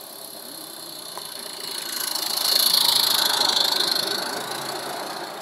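Small live-steam garden-railway locomotive hauling a train of coaches past. The sound swells as the train nears, is loudest a little past halfway, then fades as it goes by.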